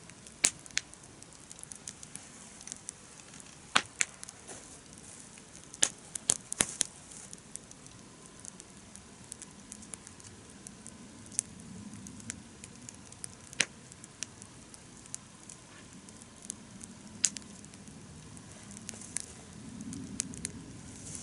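Wood campfire crackling: irregular sharp pops and snaps, several in quick clusters, over a faint steady hiss.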